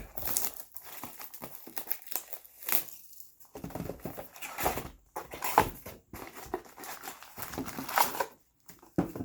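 Plastic wrapping crinkling and tearing in irregular rustling bursts as a sealed box and packs of basketball trading cards are opened.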